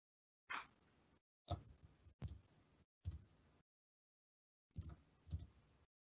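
Near silence broken by six faint, short clicks at irregular intervals.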